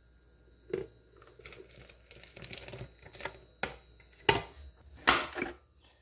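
Irregular knocks and clatters with rustling in between, from handling the blender jar and the stand mixer's glass bowl.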